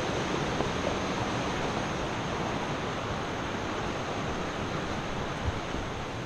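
Steady rushing wind noise on the camera microphone, with a faint knock about five and a half seconds in.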